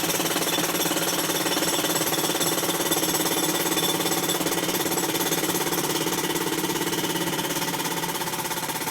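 Jackhammer breaking up a concrete sidewalk, hammering continuously in a fast, even rhythm.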